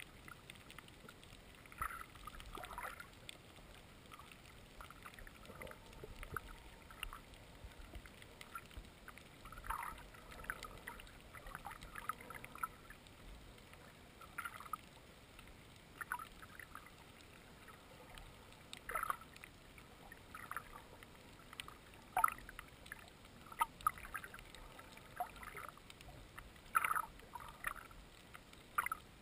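Underwater ambience: a faint steady hiss with irregular short clicks and crackles every second or two.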